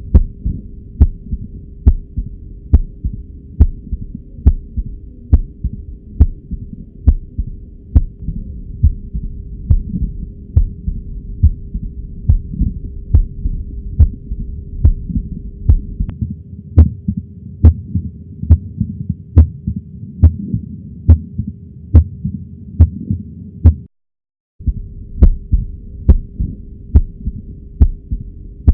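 Recorded human heart sounds: a regular heartbeat of roughly one beat a second, each beat a low thump with a sharp click on top, over a steady hum. The sound drops out briefly about four-fifths of the way through, then the beat resumes.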